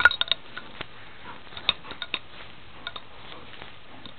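Scattered light clicks and taps from two dogs playing, with a quick run of louder clinks in the first moment and then isolated ticks about every half second to second.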